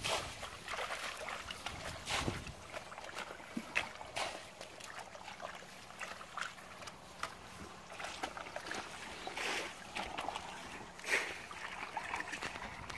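Hands groping and sloshing through shallow muddy water and mud, giving small irregular splashes and squelches, the larger ones a little after 2 s and around 11 s.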